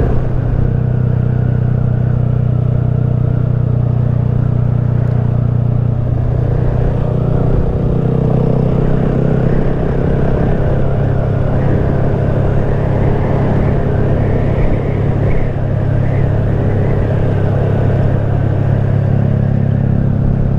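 Honda Grom's small single-cylinder four-stroke engine running steadily while riding at road speed.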